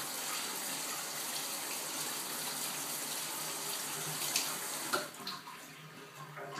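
Kitchen faucet running onto hands being washed in a stainless steel sink. The water stops about five seconds in, with a couple of small clicks around then.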